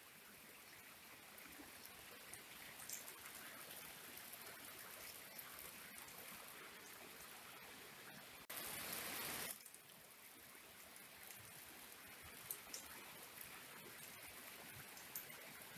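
Faint, steady rushing of flowing water from a stream at the waterfalls, with a few light ticks. About halfway through, a louder stretch of rushing water lasts about a second, starting and stopping abruptly.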